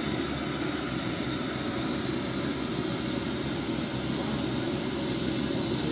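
Pakoras deep-frying in a large karahi of hot oil over its burner: a steady, even roaring hiss.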